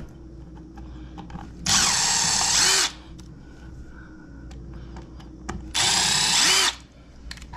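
Milwaukee cordless driver running in two short bursts of about a second each, driving the mounting screws of a kitchen receptacle into its electrical box.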